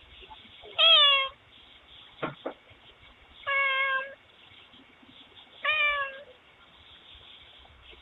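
A domestic cat meowing three times, each call about half a second long and falling slightly in pitch at the end. It is picked up through a doorbell camera's microphone.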